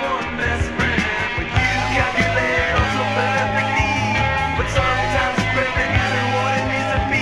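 Late-1970s hard rock (AOR) band recording playing at full volume. Drums and bass run steadily under a lead melody that wavers in pitch.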